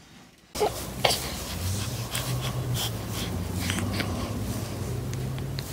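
A baby snuffling and breathing, with small clicks and sniffs scattered through, over a steady low hum.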